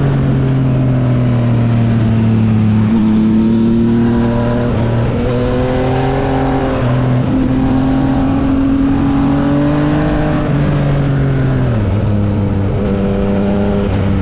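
Yamaha XSR900's inline three-cylinder engine running through an SC-Project aftermarket exhaust, its pitch rising and falling as the revs change, with several sudden drops.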